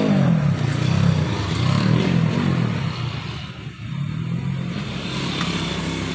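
A motorcycle engine running and being revved up and down, loudest over the first three seconds, then settling to a lower, steadier run.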